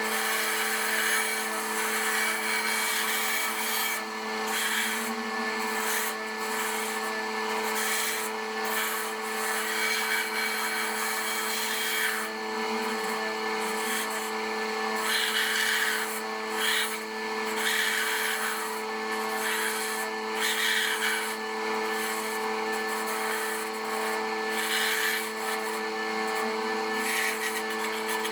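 Electric saw running with a steady motor hum while its blade cuts through wood, the cutting hiss swelling and easing as the workpiece is fed.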